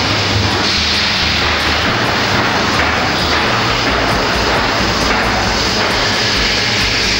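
Colliery winding engine running, a loud steady roar with a low rumble underneath, as the winderman works the levers during a wind.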